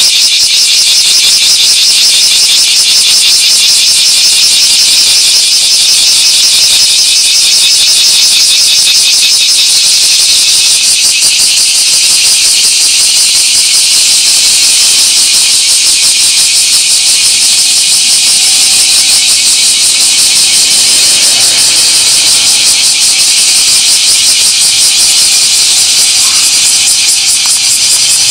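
Loud chorus of cicadas: a dense, rapidly pulsing high buzz.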